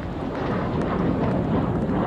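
Steady jet noise from several BAE Hawk T1 jets flying apart after a formation break, with wind rumbling on the microphone.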